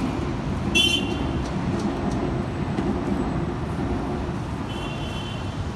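Steady low vehicle rumble. A short high squeal comes just under a second in, and a fainter one near the end.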